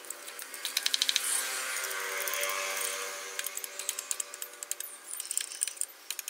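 Machete blade scraping along a bamboo rod, coming in runs of rapid dry clicks as the edge chatters over the cane, with a steady humming tone underneath.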